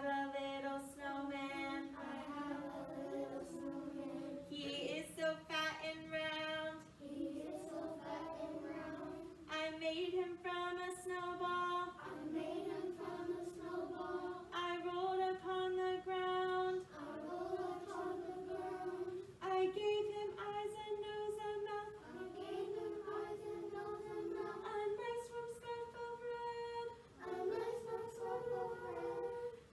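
A woman and a group of young children singing together in long held notes, the pitch stepping higher every few seconds.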